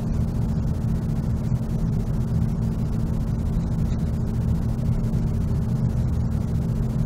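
Forced-air furnace running: a steady low rumble with a constant droning hum.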